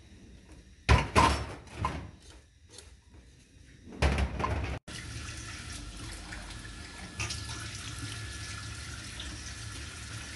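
A steel pot clunks a few times against a steel sink drainer. Then, from about five seconds in, water runs steadily into the kitchen sink.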